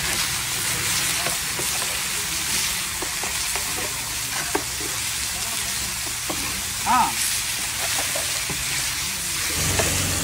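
Whole fish sizzling in oil on a flat stone griddle, with a metal spatula scraping and tapping as the cook turns them. A brief pitched squeak stands out about seven seconds in, and a low hum comes in near the end.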